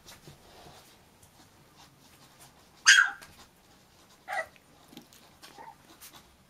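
Thai Bangkaew puppy giving a loud, short, high yelp about three seconds in, then a second, shorter one about a second and a half later.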